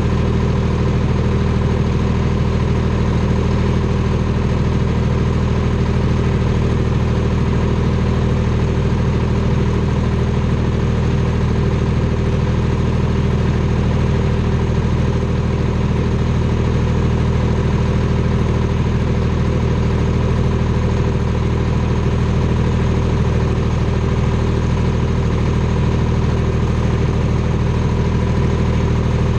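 Detroit Diesel 3-53, a three-cylinder two-stroke diesel in a Clark 664B skidder, idling steadily, heard right beside its exhaust stack. Its speed and level do not change.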